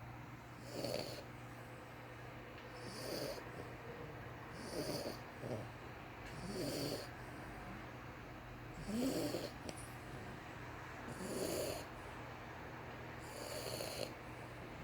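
French bulldog puppy snoring in its sleep: a short snore about every two seconds, seven in all.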